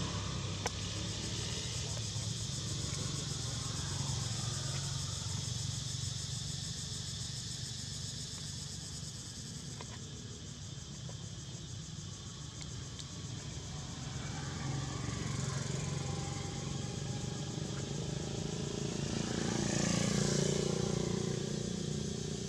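Steady low rumble of distant motor vehicles, swelling twice as vehicles pass, about two-thirds of the way in and near the end.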